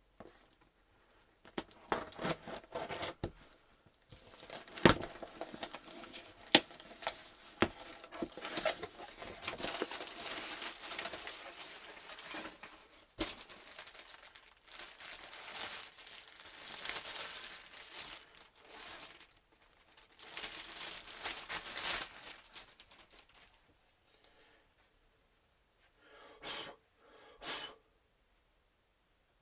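A mailed package being torn open by hand, its packaging tearing and crinkling in a long run of rustling, with a few sharp snaps. It stops for a few seconds near the end, then two short rustles follow.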